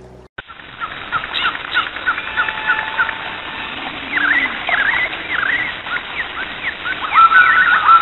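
Birds chirping, starting abruptly: a busy run of short, quick sweeping calls over a steady hiss. Near the end, longer held whistled notes repeat.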